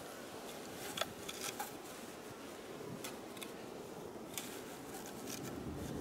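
Hands rustling burlap over a hive's screened fondant board, with a few light clicks and taps, the sharpest about a second in. A faint steady hum of clustered honeybees runs underneath.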